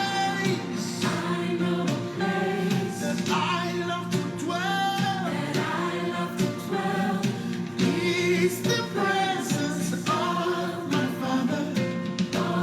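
Gospel music with choir singing over instrumental backing.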